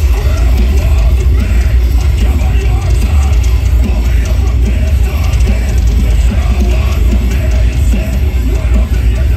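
A metalcore band playing live through a festival PA: heavy distorted guitars, drums and a booming bass low end under shouted vocals, loud and dense as picked up by a phone in the crowd.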